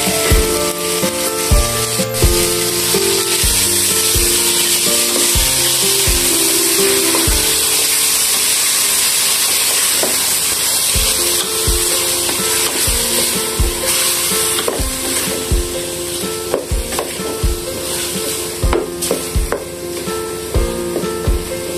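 Marinated shrimp frying with chopped onions and garlic in hot oil: a steady, loud sizzle while a wooden spatula stirs them in the pan. Background music with a steady beat plays underneath, dropping away briefly around the middle.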